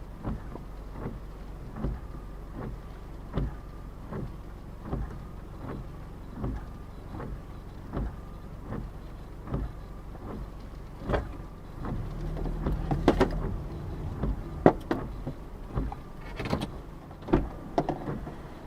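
Car windshield wipers sweeping at a steady pace, a soft thump about every 0.8 s, heard inside the car cabin over road noise. The low road rumble grows louder about two-thirds of the way through, with a few sharper clicks.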